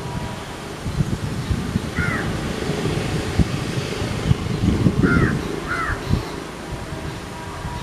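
A bird calls three short times: once about two seconds in, then twice close together around five seconds. Under the calls runs a low, gusty rumble of wind on the microphone.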